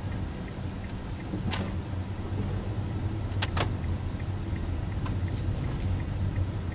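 Steady low rumble of a car's engine and tyres, heard from inside the cabin while driving slowly in city traffic. A few sharp clicks sound over it, the loudest a quick pair about halfway through.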